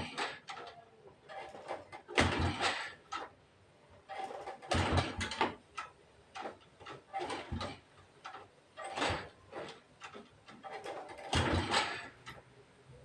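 Honda motorbike being kick-started over and over, one clattering kick about every two to three seconds, the engine not catching.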